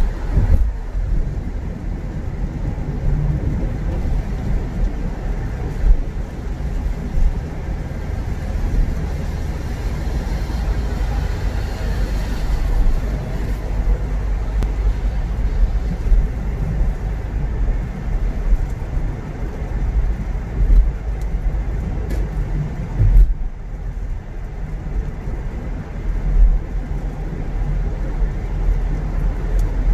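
A car driving on city roads: steady low rumble of engine and tyres, with a few brief knocks.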